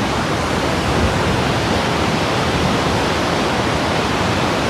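Loud, steady rush of a large waterfall, a constant roar of falling water.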